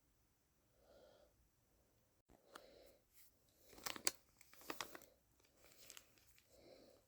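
A D&D blind bag's packaging crinkling and tearing as it is opened by hand: a run of sharp crackles over about four seconds, loudest near the middle. Heavy breathing comes just before and just after.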